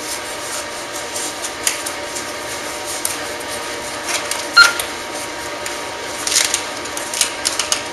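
Rustling and clicking of a cervical collar being fitted around a patient's neck, with one sharp click about halfway through and a crackling run of short clicks near the end.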